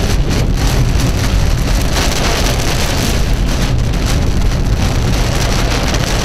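Heavy wind-driven rain pelting a car's windshield and body, heard from inside the car as a loud, dense hiss with a constant low rumble underneath.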